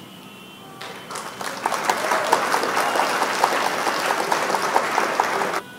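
Applause sound effect: a crowd clapping, rising to full strength over the first second or two and cutting off abruptly near the end. It is the cue for the quiz answer being revealed.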